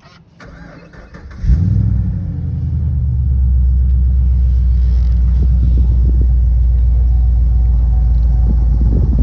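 Holden VF Commodore SSV's 6-litre LS V8 being started: a short crank, then it catches with a flare about a second and a half in. It then settles into a steady, deep idle.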